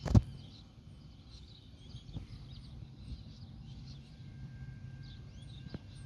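Small birds chirping here and there over a low steady rumble of outdoor background noise, with a sharp knock right at the start and a faint, thin steady tone from about four seconds in.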